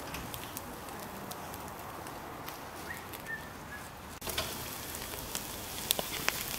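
Skewered turkey pieces sizzling over a charcoal mangal grill, with fat dripping onto the coals and popping in scattered sharp crackles. About four seconds in the sizzle gets a little louder and the crackles come more often.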